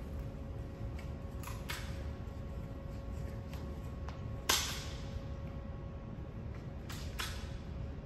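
Sharp clicks and snaps of hand wiring tools as wires are stripped, ferruled and terminated on a control panel: a pair of quick clicks, a single louder snap in the middle, then another pair near the end, over a steady faint hum.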